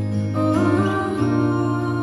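Live folk music: a sustained low drone with a melody line that comes in over it about half a second in.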